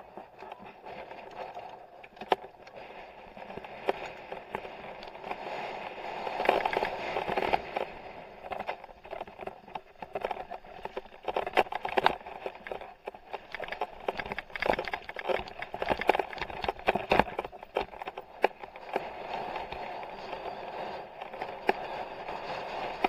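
Mountain bike descending a dirt trail: a steady rushing noise of the ride, with frequent sharp clicks and knocks as the bike rattles over bumps. It grows louder a few seconds in as speed builds.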